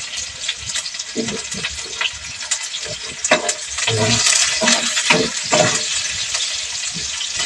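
Sliced onions and ginger sizzling in hot cooking oil in a pan, with a spatula stirring and knocking against the pan. The sizzle swells about four seconds in as the onions are turned.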